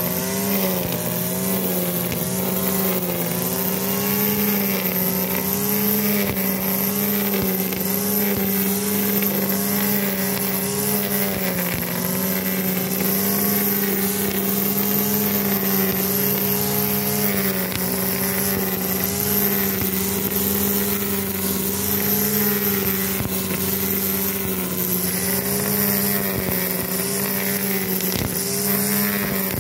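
STIHL FS200 two-stroke brush cutter running steadily at high revs, its line trimmer head cutting grass. The engine pitch wavers slightly as the head is swept to and fro.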